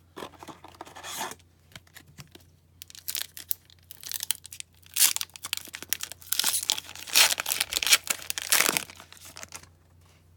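Foil wrapper of an O-Pee-Chee Coast to Coast hockey card pack being torn open by hand and crinkling. Light rustles at first, then louder tearing and crinkling through the second half, stopping shortly before the end.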